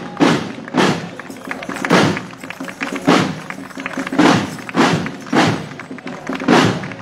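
Marching drum corps of snare drums playing a parade cadence: a steady march beat with heavy accented strokes about every half second and lighter stick patterns between them.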